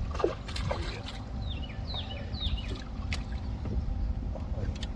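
A crappie being brought aboard a fishing boat: small splashes and clicks over a steady low rumble of wind and water. A bird calls three short notes sliding down in pitch, between about one and a half and two and a half seconds in.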